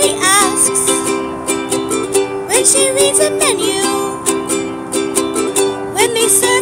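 A woman singing a slow song to her own strummed ukulele, the chords strummed steadily under her voice.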